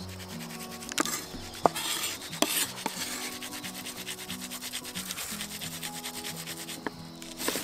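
Background music: low held notes stepping from one pitch to the next, over a fast, even, scratchy rhythm, with a few sharp clicks in the first few seconds.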